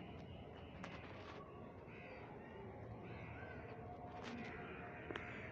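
Crows cawing repeatedly at a moderate distance, with a few sharp ticks in between.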